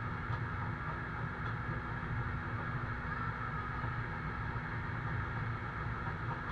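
Iveco fire truck's engine running steadily to drive its fire pump, which feeds a hose throwing a water jet. A low, even drone with a constant hum.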